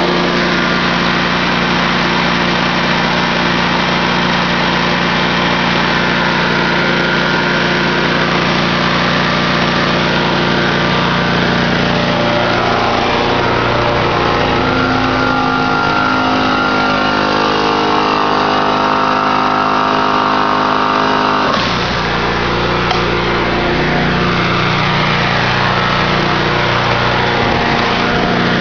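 Engine-driven generator running steadily. Partway through, a second machine's pitched hum, shifting in pitch, joins in and cuts off suddenly about three-quarters of the way in, leaving the steady engine sound.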